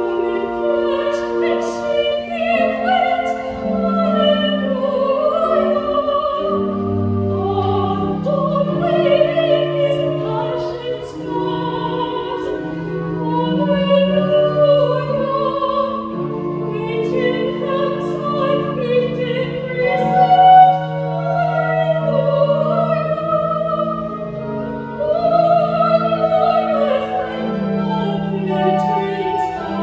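Solo soprano voice singing a sacred song in full classical style, with vibrato on the sustained notes, over an accompaniment that holds long, steady low notes.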